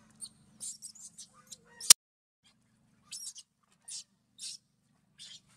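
Baby macaque crying in short, high-pitched squeals, one after another: distress at being bathed. A single sharp click about two seconds in.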